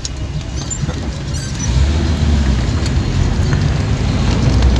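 Car driving on a rough dirt road, heard from inside the cabin: a steady low rumble of engine, tyres and wind that grows louder over the first two seconds.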